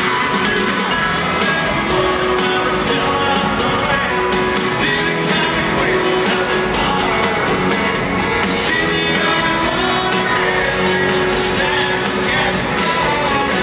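A country rock band plays live with a male lead vocal, amplified through a stadium PA and recorded from within the crowd.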